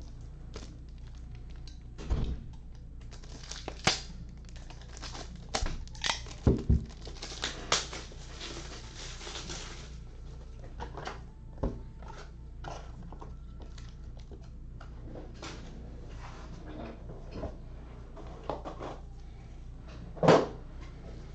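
Scattered clicks and knocks with some crinkling, over a steady low hum.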